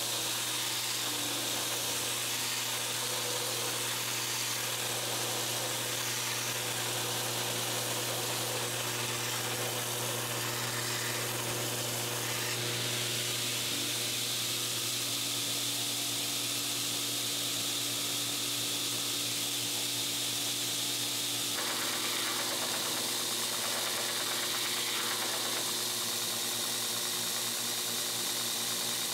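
Belt grinder running with a steady motor hum and belt hiss, a steel knife blade held in a bevel jig pressed against the belt at times to grind its bevels.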